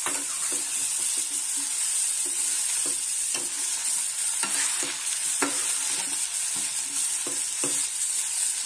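Potato, eggplant and sliced onion sizzling in hot oil in a steel kadhai while a metal spoon stirs them, scraping and knocking on the pan about twice a second.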